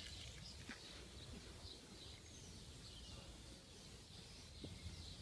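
Faint steady background noise with a low hum and faint, scattered high chirps.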